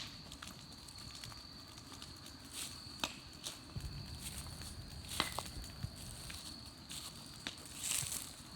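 Footsteps crunching and rustling over dry leaves and twigs, irregular light snaps and clicks, over a steady thin high-pitched whine.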